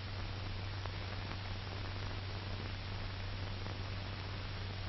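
Steady hiss and low hum of an old 1940s film soundtrack between narration, with a few faint crackle clicks.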